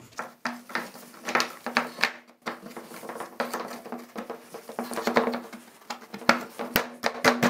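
Hard plastic knocking and clicking, irregular and spread through the whole stretch: a plastic shelf tray being set onto plastic pillar legs and pressed down at the corners to fit.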